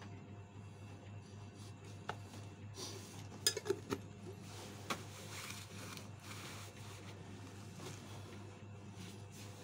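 A few light clinks and taps of small hard objects being handled and set down, with a quick cluster of them about three and a half seconds in, over a steady low hum.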